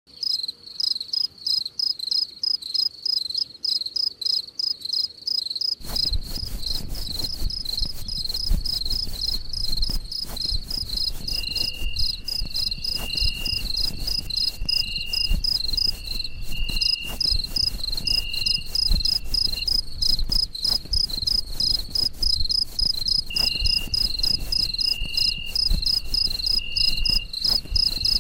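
Crickets chirping in a fast, even rhythm, about four chirps a second. About six seconds in a low rumble joins, and a second, lower-pitched pulsing trill comes and goes over it.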